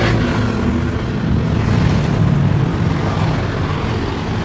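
Road traffic beside the sidewalk: vehicle engines passing by with tyre and road noise, a steady low hum.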